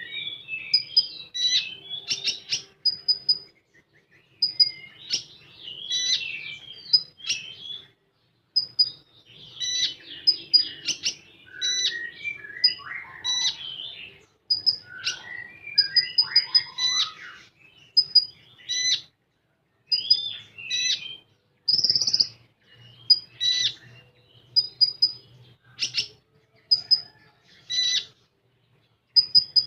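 A konin songbird singing in a rapid-fire 'tembakan' run: short, high pips repeated in quick series, mixed with fast warbling trills and gliding whistles, broken by brief pauses.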